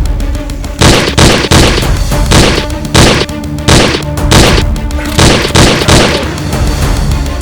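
A series of gunshot bangs, about a dozen shots at roughly two a second, over background music.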